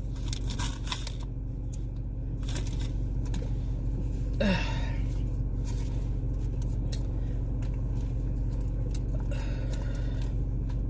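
Steady low hum of a car's cabin with the engine idling, with scattered small clicks and rustles of handling. A short falling sound about four and a half seconds in.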